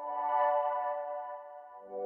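Background music: slow ambient synthesizer chords, with a new chord coming in near the end.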